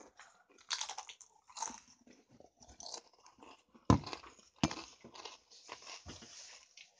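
Doritos tortilla chips being crunched and chewed close to the microphone, in irregular crackles. Two sharp knocks come about four seconds in and half a second later.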